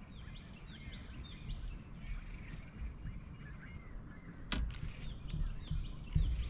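Birds calling: runs of short, quick repeated chirps, with a single sharp click about four and a half seconds in over a low rumble.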